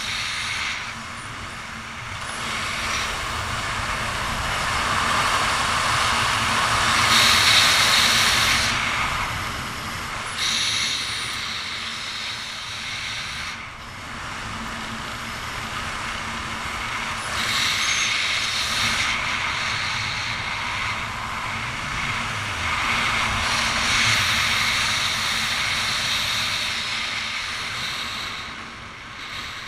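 Wind rushing over the camera's microphone during a parachute descent under an open canopy, swelling and easing several times.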